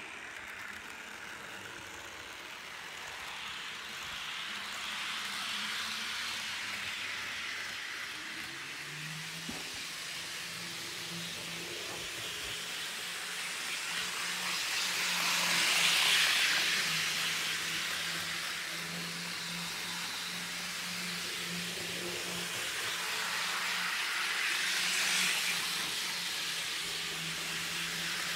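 HO-scale Lima FS ETR 401 Pendolino model train running on the layout's track: a steady electric motor hum with a hissing wheel-on-rail rush. The rush swells twice as the train runs past close by, about halfway through and again near the end.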